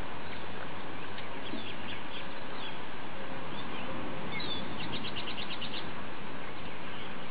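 Small birds chirping over a steady hiss of background noise, with a quick trill of about ten chirps about two-thirds of the way through.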